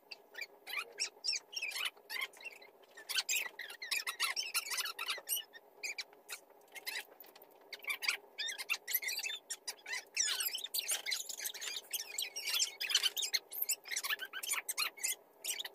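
Felt-tip marker squeaking across cardboard in quick, irregular strokes as numbers are written on the boxes. A steady low hum runs underneath.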